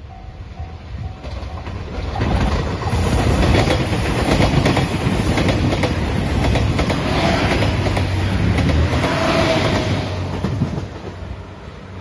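JR Shikoku 2700 series diesel limited express passing close by: the diesel engines run and the wheels clatter over the rail joints. The sound builds about two seconds in and fades shortly before the end. A level-crossing warning bell rings at the start.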